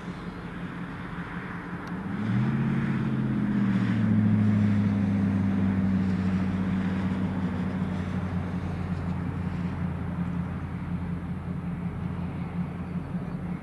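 Diesel-electric locomotive engines throttling up about two seconds in: a deep drone that rises briefly in pitch, then holds steady and slowly eases off as the locomotives pull.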